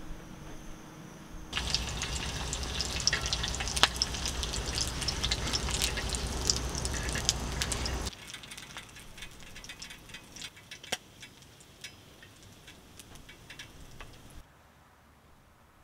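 Kielbasa sausage and eggs frying on a hot griddle pan: loud sizzling and popping from about a second and a half in, dropping to fainter crackling about eight seconds in, which fades out near the end.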